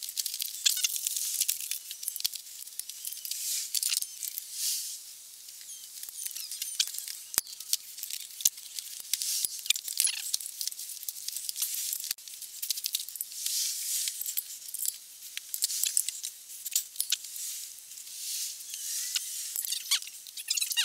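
Handling noise: scratchy rustling and scraping with scattered light clicks and clinks, from gloved hands moving a spoked motorcycle wheel and small parts about.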